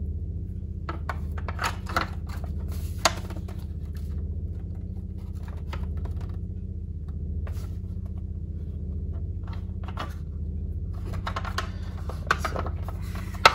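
Hard plastic parts of a motorcycle flyscreen clicking and tapping as the smoked windscreen is handled and fitted into its black fairing piece. The clicks are scattered, with a sharper knock about three seconds in and a cluster near the end. A steady low hum lies underneath.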